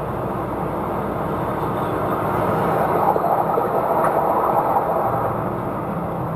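Steady moving-vehicle noise: engine and road rumble from a vehicle on the move, swelling slightly in the middle.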